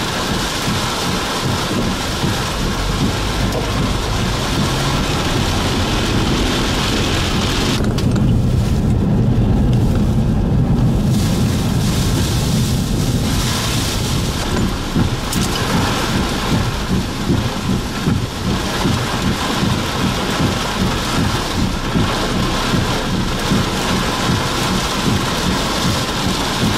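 Heavy rain beating on a car's roof and windshield during a severe thunderstorm, a dense steady hiss heard from inside the vehicle. About eight seconds in, a deep low rumble swells for several seconds while the hiss thins.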